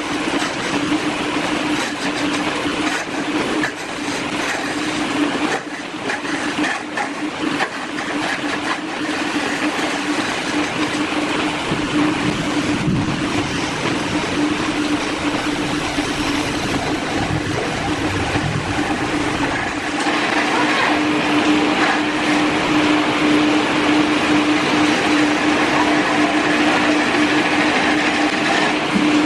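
Wood lathe running, a steady motor hum under a continuous rough hiss of wood being worked. It gets a little louder about twenty seconds in.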